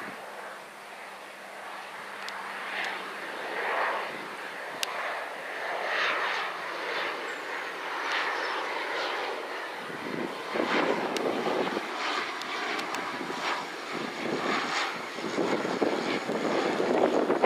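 Bombardier Dash 8 Q400 (DHC-8-402) turboprop on approach with gear down. Its two turboprop engines and propellers are heard as a swelling, uneven noise that grows louder as the aircraft nears.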